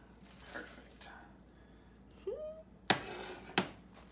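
Plastic wrap rustling and crinkling as it is peeled off a frozen ice cream cake, then two sharp knocks of a glass mixing bowl on the cooktop near the end, about a second apart.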